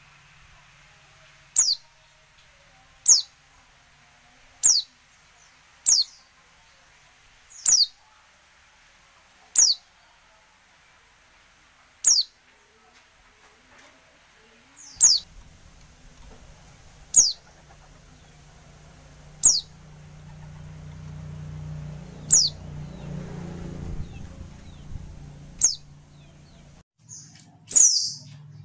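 Female white-eye (pleci) giving single short, high calls that slide downward, one every one and a half to three seconds, about a dozen in all. A low rumble rises underneath from about halfway through and stops shortly before the end.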